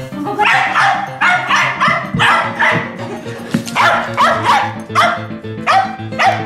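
Shetland sheepdog barking in a rapid string of over a dozen sharp barks, about two a second, eager to play ball. Background music runs underneath.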